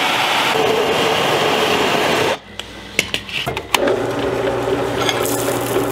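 Drill press bit grinding against the hardened leaf-spring steel of a knife tang, a loud harsh scraping that stops suddenly a little over two seconds in: the bit barely bites the hardened steel. A few sharp clicks follow, then the drill press motor runs steadily.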